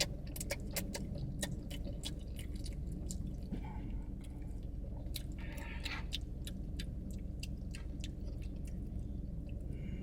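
A person chewing noodles and shrimp with their mouth open, on purpose: a quick, uneven run of wet smacking clicks.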